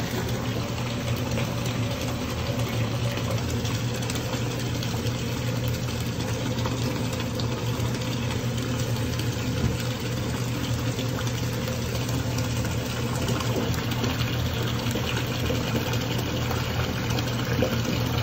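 Bathtub faucet running into a filling tub: a steady rush of water pouring into the bathwater, with a low hum beneath it.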